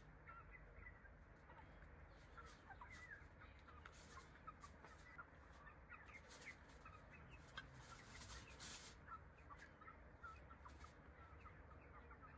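Faint farmyard and bird ambience: many short chirps and clucks from birds and chickens scattered throughout.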